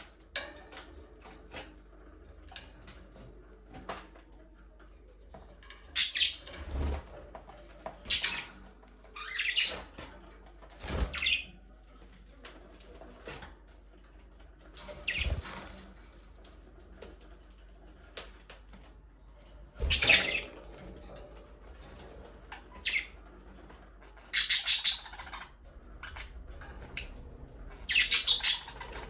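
Budgerigars chirping and chattering in short bursts every second or few, with occasional wing flaps and thumps.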